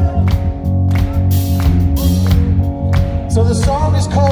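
Live rock band playing an instrumental passage, with electric guitars sustaining chords over bass and steady drum hits, amplified through a theater PA. A bending melodic line comes in near the end.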